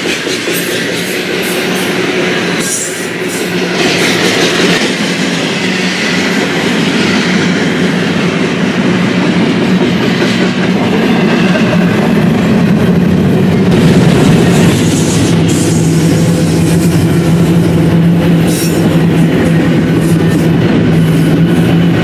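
BNSF double-stack container train rolling past close by: a loud, steady rumble of steel wheels on rail, with clickety-clack and sharp clanks from the well cars, and a steady tone coming in about two thirds of the way through.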